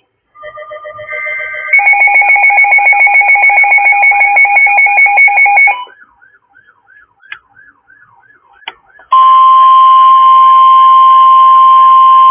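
Weather-radio emergency alert. A brief string of data tones leads into a loud, rapidly pulsing two-pitch electronic beep lasting about four seconds. After a quieter gap, the steady 1050 Hz NOAA Weather Radio warning alarm tone starts about nine seconds in, the signal that a warning message follows.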